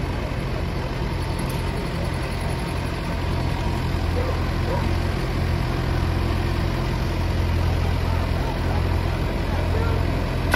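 Diesel engines of a Valtra 6550 and a New Holland tractor running hard under load as the two pull against each other in a tug-of-war. It is a steady low drone that grows a little louder about four seconds in.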